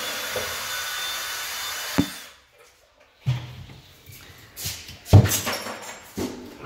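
A steady scraping, rubbing noise lasting about two seconds that ends in a sharp knock, followed after a short pause by a series of irregular bumps and thumps.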